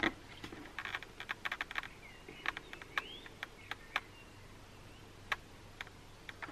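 Light, irregular clicks and taps of plastic parts being handled and pressed into place while a helmet intercom mount is fitted, with a few faint high chirps around the middle.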